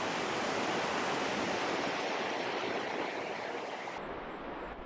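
Steady rush of a fast-flowing, snowmelt-swollen mountain stream, slowly growing quieter.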